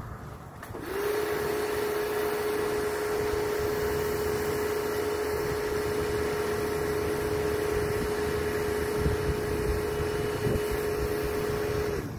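A motor-driven machine starts up about a second in with a short rising whine, runs at a steady pitch with a rushing, blower-like noise, and cuts off abruptly just before the end.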